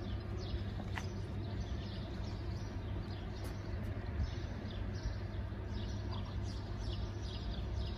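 Small birds chirping, short falling high chirps about two a second, over a steady low rumble of outdoor street ambience.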